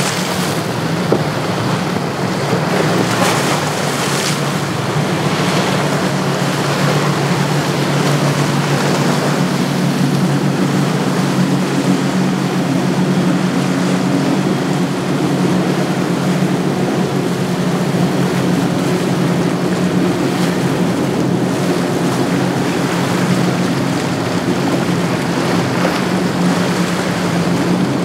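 Triple Mercury 350 outboard engines on a center-console-style cuddy boat running steadily at speed, a continuous drone over rushing wake and surf. Wind buffets the microphone in gusts during the first few seconds.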